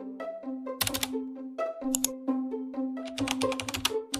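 Light intro music over a held low note, with a computer-keyboard typing sound effect: a few clicks early, then rapid clicking from about three seconds in.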